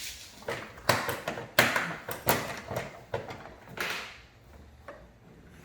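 Plastic body panel of a Can-Am Spyder RT being pulled and worked loose by hand: a series of plastic scrapes, knocks and clicks. The loudest come about one and a half to two and a half seconds in, with another near four seconds.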